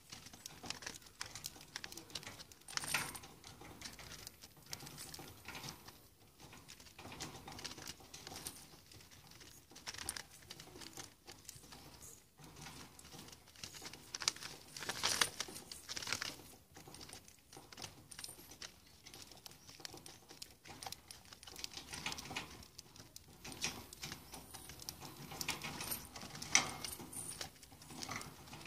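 A pet parrot foraging for seeds on a paper-lined cage floor: irregular light pecking taps and rustles, with a few louder knocks and clatters from the small seed cup it forages in.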